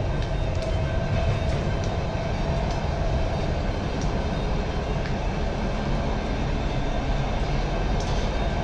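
Subway train running, heard from inside the carriage: a steady low rumble of wheels on track with a faint steady whine and occasional small clicks and rattles.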